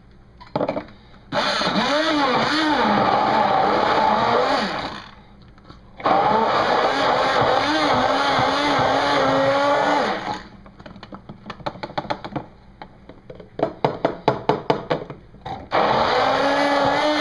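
Corded electric immersion blender puréeing chopped onion with olive oil into an emulsion in a tall plastic cup. It runs in two long stretches of several seconds with its pitch wavering, then in a quick string of short pulses, then runs again near the end.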